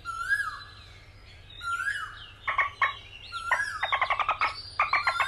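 High, bird-like animal calls: a few short rising chirps at first, then fast chattering runs of calls from about halfway through, most continuous near the end.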